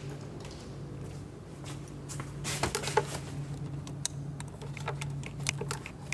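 Scattered light clicks and knocks of a handheld digital multimeter and its test leads being handled, over a steady low hum.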